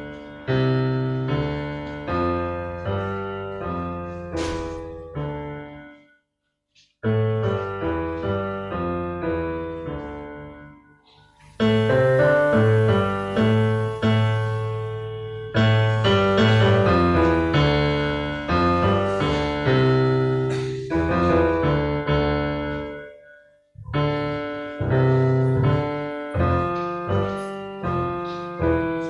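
Solo piano playing a slow piece of chords and melody, phrase by phrase, with short pauses about six, eleven and twenty-three seconds in.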